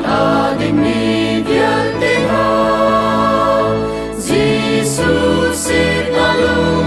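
Male and female voices singing a Chin (Lai) Christian hymn in harmony, with piano accompaniment.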